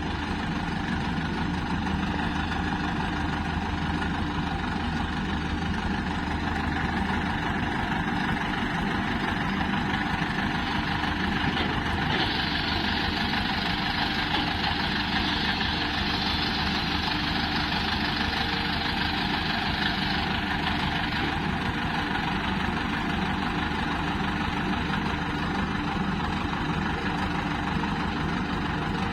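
Heavy diesel engines of an excavator and a tractor running steadily. A brighter hiss comes in from about twelve seconds in and drops away about nine seconds later.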